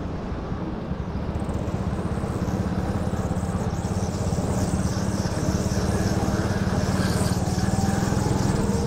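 Go-kart engine running under throttle, heard from on board the kart, with a slight dip in level about a second in.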